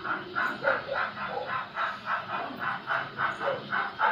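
Model train running slowly along the layout track, with an even pulsing of about three to four beats a second.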